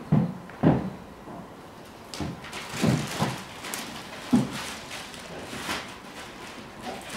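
Sneakers stepping and being set down on a carpeted floor: a series of short, irregularly spaced thumps, about seven of them, as the feet shift and one foot lifts and comes back down.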